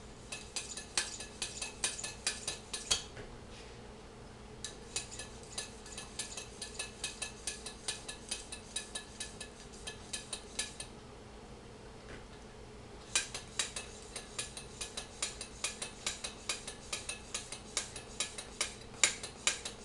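Hand-operated bicycle shock pump (rated to 300 PSI) being worked to pump air through a Schrader valve into a homemade air-powered shell: quick metallic clicks about four a second, in three runs broken by short pauses about three and eleven seconds in.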